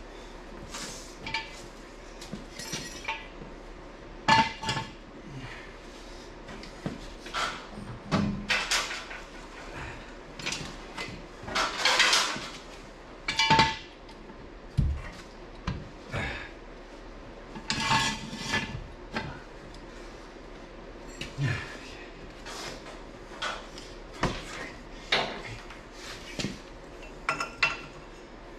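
Irregular metallic clanks and clinks as steel tools and parts are handled and knocked together on a truck frame and rear axle, a few of them ringing briefly.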